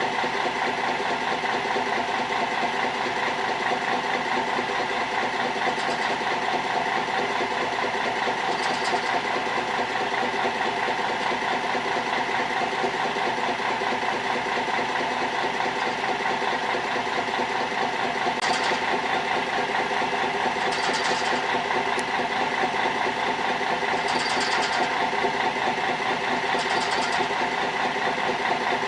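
Fishing boat's engine running steadily, a constant hum throughout, with a few brief hissing sounds every few seconds, mostly in the second half.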